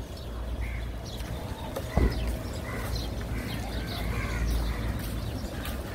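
Ducks quacking repeatedly in short calls over a steady low rumble, with a single sharp thump about two seconds in.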